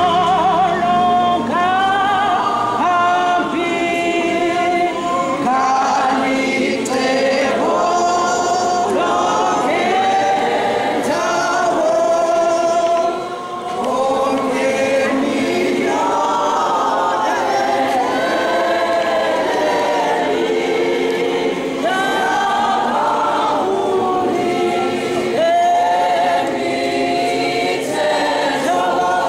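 A congregation of many voices singing together in parts, a steady group song carried by the whole hall.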